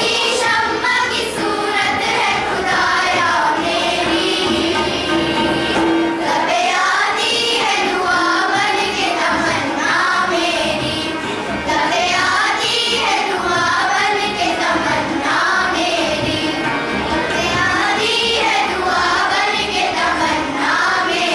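A choir of schoolgirls singing a song together into microphones.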